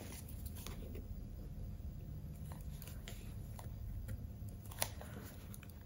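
Faint handling of paper stickers on a planner page: light rustles and soft taps, with one sharper click near the end.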